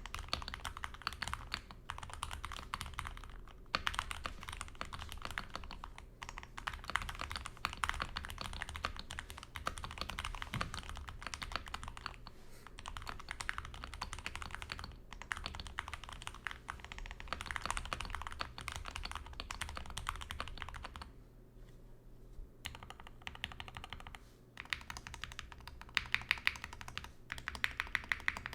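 Typing on an SK61 mechanical keyboard with lubed and filmed Gateron optical brown tactile switches, butyl rubber foam and stock keycaps: a fast, steady run of keystrokes. A little past the middle the typing stops briefly, and near the end comes a run of louder, evenly spaced key presses.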